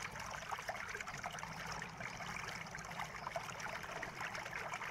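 Steady faint hiss of background noise with light, irregular crackling; no distinct event stands out.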